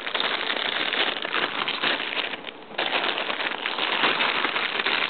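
Plastic bag of model-kit parts crinkling as it is torn open and handled: a dense, steady crackle that eases briefly about two and a half seconds in.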